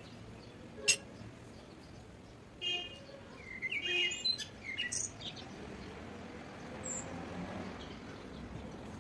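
Birds chirping, with a run of quick twittering calls about three to five seconds in and a single short high chirp near the end. One sharp click, the loudest sound, comes about a second in.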